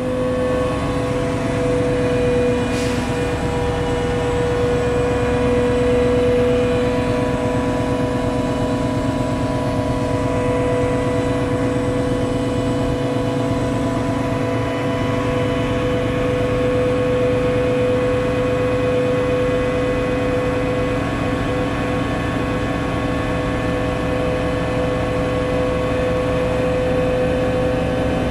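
KATO NK-3600 truck crane's diesel engine and hydraulics running steadily while the crane works a lifted load, with a steady whine over the engine's low hum.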